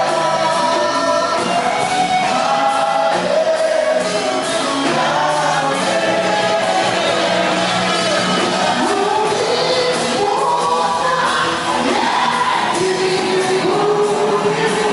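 Live worship song: voices singing a melody with long held notes over instrumental accompaniment and a steady low bass note.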